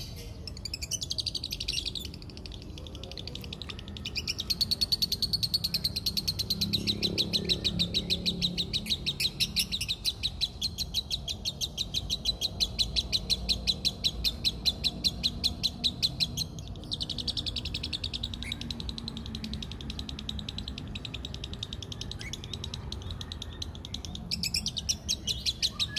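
Lovebird's long, fast rattling chatter (the 'ngekek'), many high notes a second, running unbroken for about twelve seconds, then after a short break going on again twice. It is the sustained song of a male lovebird in breeding condition ('gacor').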